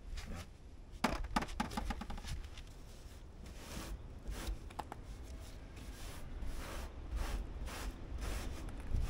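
Cloth rag rubbing and wiping gritty, freshly brushed bed-liner coating off a sheet-metal cab floor panel, in repeated short strokes. A few sharp clicks and knocks come about a second in.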